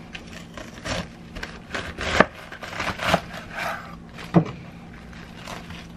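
Kitchen knife cutting a head of cabbage on a cutting board: crisp crunching slices and a few sharp knocks of the blade on the board, the loudest a little past two seconds in.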